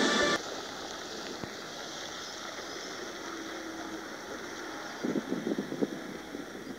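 Tractor pulling a large tipper semi-trailer: a steady rushing noise of engine and movement, with louder uneven pulses about five seconds in.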